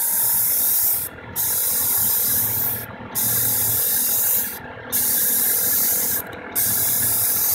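Compressed-air spray gun hissing in about five passes of one to two seconds each, cut by short pauses, as it sprays a coat of latex leather colour onto a seat.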